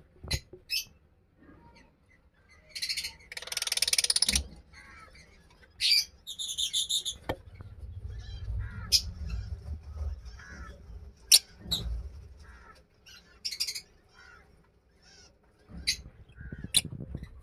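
Lovebirds calling: scattered short, sharp chirps and squawks, with a longer harsh, rasping call about three seconds in and a higher pitched call around six seconds. A low rumble of handling noise runs under the calls in the middle.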